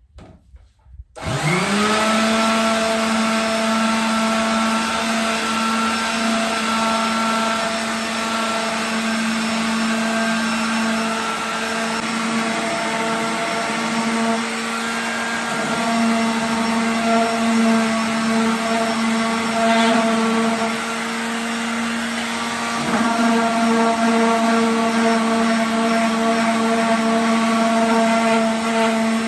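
Electric power sander starting up with a quick rising whine about a second in, then running steadily as it sands the freshly cut edge of a wooden door, its pitch dipping a little as pressure changes.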